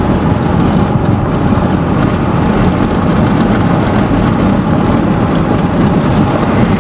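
Steady road and tyre noise inside a Honda car cruising at about 45 mph.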